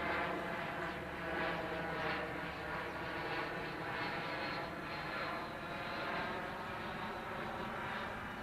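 A steady engine drone, holding one pitch with a mild swell now and then.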